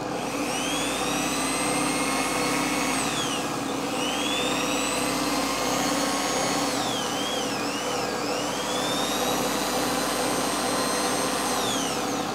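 Corded electric drill running off a generator built from a hand-blender motor. Its high whine rises and falls several times as it speeds up and slows down, over the steady hum of the belt-driven motor and generator.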